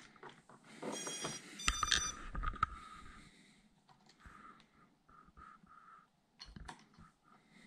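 Beta85X HD brushless whoop drone powering up as its battery is plugged in: the motors give short beeping startup tones, with clicks and knocks from handling the connector. A row of short, even beeps follows midway.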